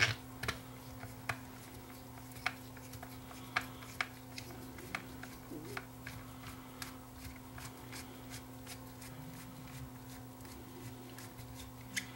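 Small screwdriver turning a long screw out of a plastic radio case, with irregular light clicks and ticks from the tool and handling of the case. A steady faint hum sits underneath.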